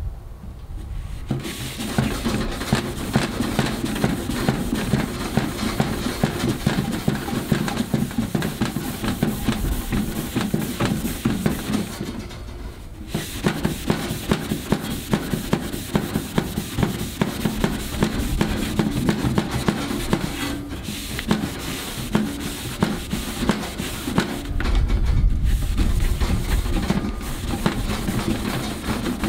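Red Scotch-Brite abrasive pad rubbed by hand over a stainless steel grill body: a continuous rapid scratching, pausing briefly about halfway through. The pad is brightening the dull steel and laying down a grain finish.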